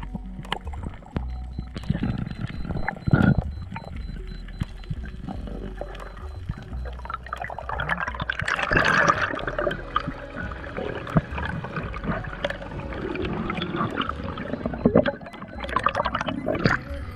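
Underwater sound picked up by a diving camera: water swishing and gurgling around the housing as the spearfisher swims up toward the surface, with uneven swells and small clicks.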